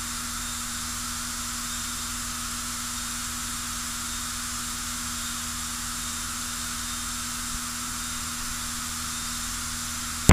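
Steady in-flight cockpit noise of a single-engine propeller aircraft: an even hiss with a faint low, steady drone underneath.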